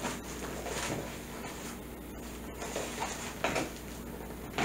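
Faint rustling and scraping of cardboard and plastic packing as a small cardboard box is opened by hand, with a few soft scrapes through it.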